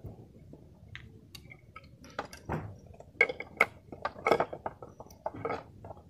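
Hands handling alarm wiring and small plastic parts on a motorcycle's open frame: irregular clicks, taps and rustles.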